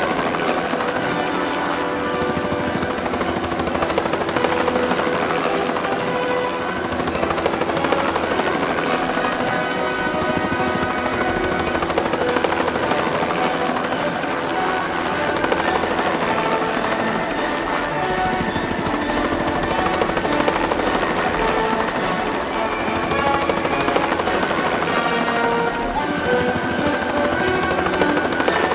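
Helicopter in flight: steady rotor and engine noise, with background music over it.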